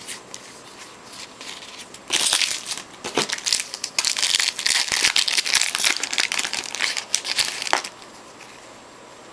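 Foil trading-card pack wrapper being torn open and crinkled in the hands, a dense crackle from about two seconds in until nearly eight seconds.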